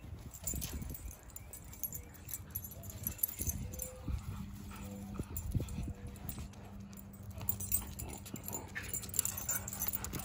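A Siberian husky and a yellow Labrador puppy playing tug of war over a rope toy: dog sounds with irregular low scuffles and thuds throughout.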